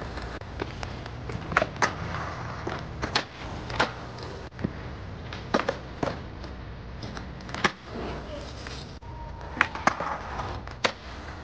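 Skateboard wheels rolling on concrete, broken by a series of sharp clacks as the tail pops and the board strikes and lands on a concrete ledge.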